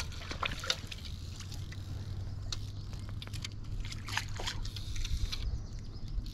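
Shallow river water sloshing and trickling around a wading angler, with scattered small splashes and clicks from handling the fly line and reel, over a steady low rumble.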